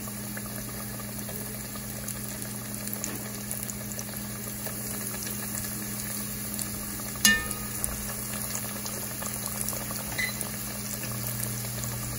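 Breaded chicken pieces frying in oil in an enameled cast-iron pot: a steady, gentle sizzle and bubbling at medium heat, with the oil not spattering. About seven seconds in, a metal fork clinks once against the pot.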